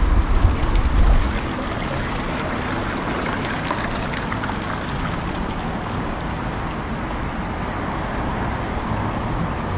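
Water running steadily in a stone street fountain, an even splashing hiss; wind buffets the microphone during about the first second.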